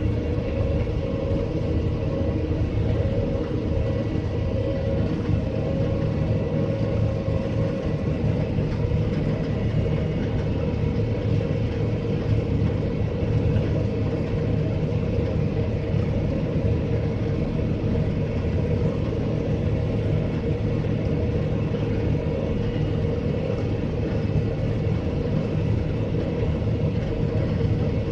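Combine harvester running under load while harvesting oilseed rape, heard from inside the cab: a steady engine and threshing-machinery drone with a faint steady whine over it.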